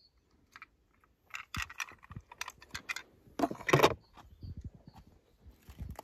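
Toy cars clinking and clattering over rocks: irregular light clicks, with a louder run of clatter about three and a half seconds in.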